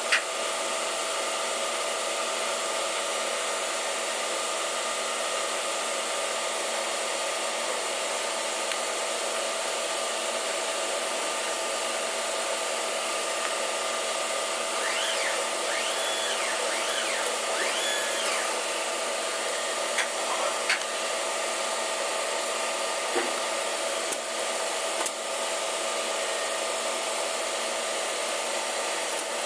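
Steady blower-like drone of ventilation fans and running machinery, with a few faint short clicks in the second half from tools working on a fuel injection pump body.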